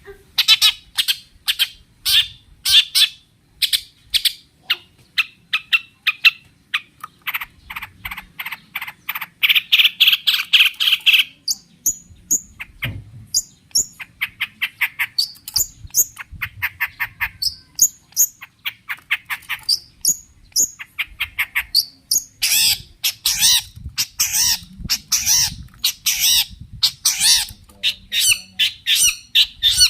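Long-tailed shrike (cendet) singing an excited, aggressive song: rapid runs of short, sharp repeated notes mixed with harsh squawks and high thin chirps, full of borrowed calls of other birds. The densest, loudest runs come about a quarter of the way in and again about three quarters of the way in.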